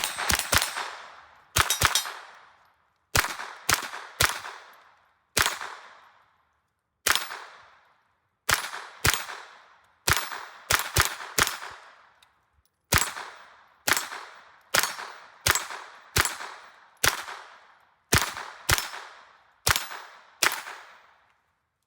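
AR-15 with a .22 LR conversion kit fired semi-automatic, about two dozen sharp shots at an uneven pace, some in quick pairs and others a second or more apart. Each shot is followed by a short ringing echo.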